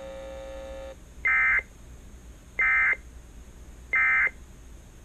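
Emergency Alert System end-of-message code: three short identical bursts of the SAME digital data screech, about 1.4 s apart, signalling the end of the alert. Before them a steady buzzing tone cuts off about a second in.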